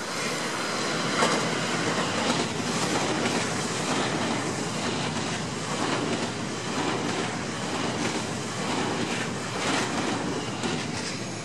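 JR West 287 series electric multiple unit passing close by, its wheels clattering over the rail joints in a fast run of clicks. Loudest in the first few seconds, then easing off as the last cars go by.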